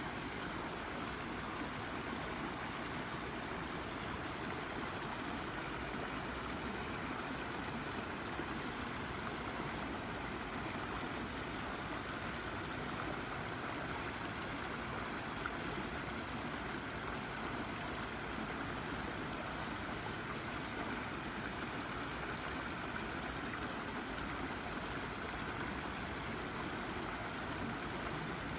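A shallow brook babbling and gurgling over a rock, a steady, unbroken rush of running water.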